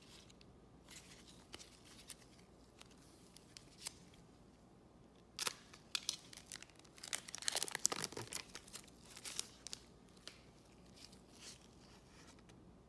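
Trading cards being handled and flicked through, with faint clicks. About five seconds in, a foil trading-card pack is torn open and crinkled, the loudest stretch: a couple of seconds of dense crackling.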